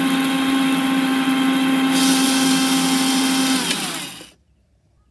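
Electric mixer grinder with a steel jar running at full speed, grinding whole spices into masala powder with a steady whine. About three and a half seconds in it is switched off and the motor spins down, its pitch falling until it stops just past four seconds in.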